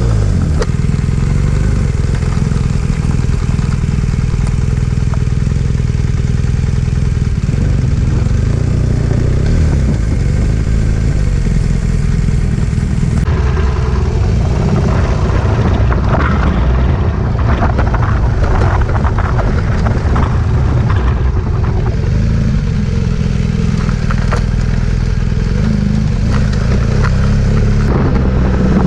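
BMW R1200GS Adventure boxer-twin engine running while riding, with heavy wind and road noise. After a change about 13 seconds in, tyres on a gravel track add scattered clattering of stones.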